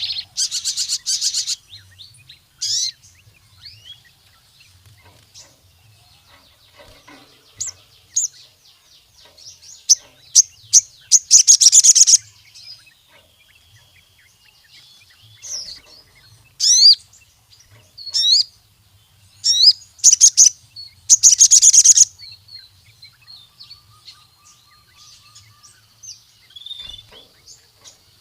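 Crimson sunbird (sogon) singing: loud bursts of rapid, high-pitched trills and chirps, separated by quieter twittering.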